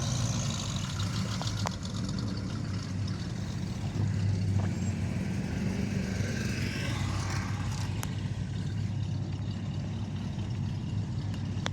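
Classic cars' engines running as they roll past at low speed: a steady, deep engine note throughout, with a brief swell around the middle.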